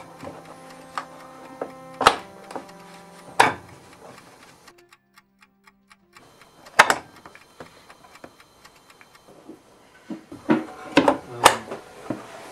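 Sharp wooden clicks and knocks as the thin wooden dividers and tray of an antique writing box are handled, lifted and set back in place: single knocks about 2, 3.5 and 7 seconds in, then a quick cluster of several near the end.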